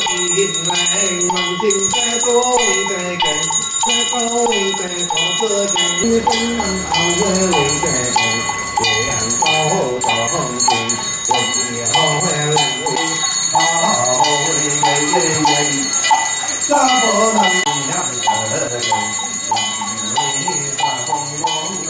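Hand bells ringing in a steady rhythm, about three strikes a second, over a group of voices chanting in a rising and falling melody during a Chinese ritual procession.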